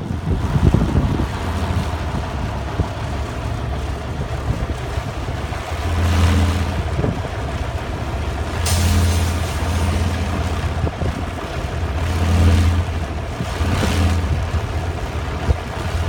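Small three-bladed wind turbine spinning fast in strong wind, its blades giving a low drone like an airplane or helicopter overhead, swelling and fading several times.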